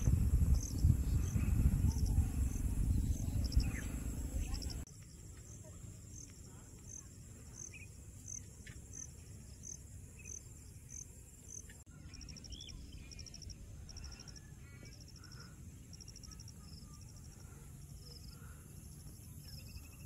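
Insects chirping in a steady high-pitched pulsed rhythm, the pulses coming in quick trains in the second half. For the first five seconds wind rumbles on the microphone, then cuts off abruptly.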